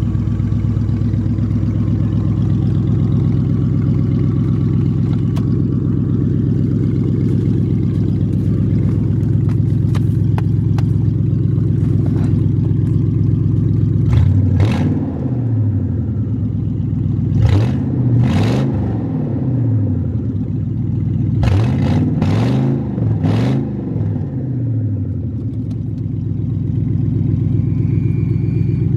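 1995 Lincoln Town Car's 4.6 L V8 running on open headers with no exhaust pipes fitted, idling steadily. From about halfway it is revved in a series of quick throttle blips, pitch rising and falling with each, then settles back to idle.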